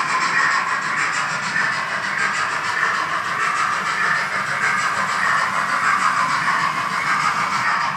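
H0-scale model train, the Roco BR 01 steam locomotive with its coaches, running along the track: a steady rolling and running noise with no pauses.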